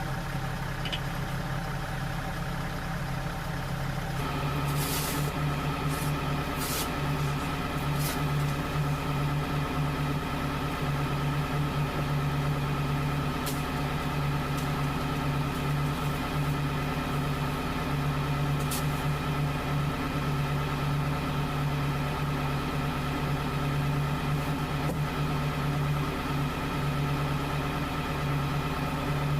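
A vehicle engine running steadily. About four seconds in, its note steps up and gets a little louder, and a few light clicks come soon after.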